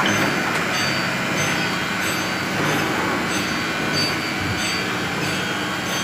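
Induction hardening machine heating combine harvester guard fingers in its coil: a steady noisy hum with faint high-pitched tones running through it, and a click right at the start.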